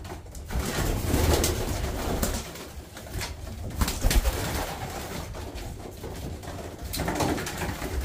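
Racing pigeons cooing, with rustling, scuffling and sharp knocks throughout as the birds are caught by hand and moved into the loft.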